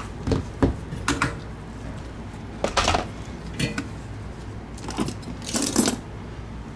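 Handling noises as a computer mouse and a leather mouse pad are picked up off a silicone work mat: a series of short knocks, taps and brief scuffs. The longest scrape comes between five and six seconds in.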